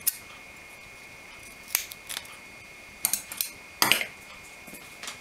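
Scissors snipping double-sided adhesive tape: a series of short, sharp snips at uneven intervals, the loudest pair close together about four seconds in.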